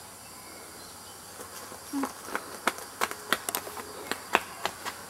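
Steady chirring of insects, then from about two seconds in, a quick, irregular run of sharp slapping taps: sandals hitting asphalt as a child runs and dances.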